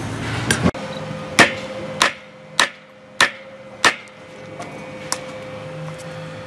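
Kitchen knife blade chopping through raw pork onto a wooden cutting board: five sharp chops a little over half a second apart, then a few lighter taps.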